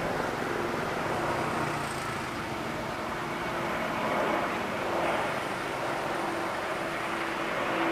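CC 201 (GE U18C) diesel-electric locomotive running steadily at low speed, a constant engine drone with a steady hum.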